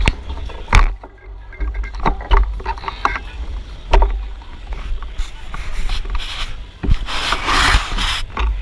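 Wind buffeting the microphone of a GoPro on a moving bicycle, a steady low rumble, with sharp clicks and knocks from the bike rattling over the road. A louder rush of hiss comes near the end.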